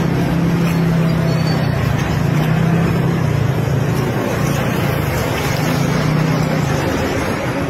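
Box truck's engine idling close by: a steady low drone over even road noise.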